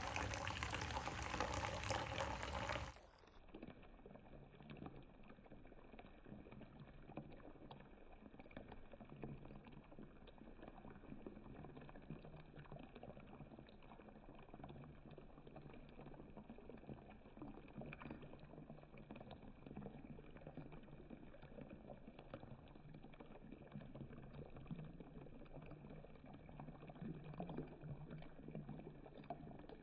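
Water running from a bathtub spout into the tub. It is loud for about the first three seconds, then drops suddenly to a faint, dull, bubbling rush for the rest.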